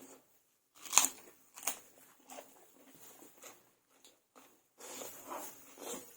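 Close-up eating sounds: chewing chow mein noodles and mouth smacks, with a sharp knock about a second in, the loudest sound, and a softer one shortly after.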